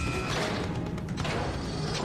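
Action-show soundtrack music with crashing impact sound effects from a robot battle.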